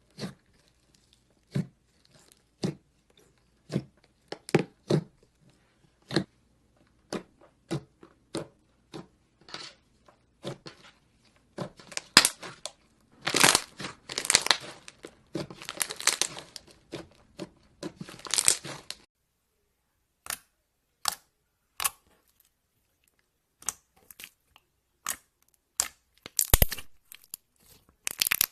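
Slime being squished and poked by hand close to the microphone: a string of short pops and clicks, with longer crackling squishes in the middle, then sparser, sharper pops.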